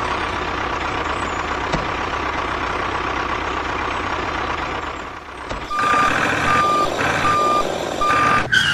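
Vehicle engine sound running steadily, then a reversing alarm beeping four times, about two beeps a second, starting about six seconds in.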